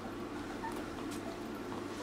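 Steady low hum and hiss with one faint, short squeak from a 12-day-old puppy a little over half a second in, and a soft click about a second in.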